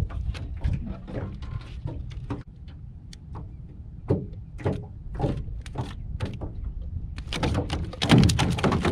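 Low wind rumble on the microphone, with scattered knocks, thumps and scrapes as a catfish and gear are handled in a small aluminum jon boat. A cluster of louder thumps and rattling comes near the end.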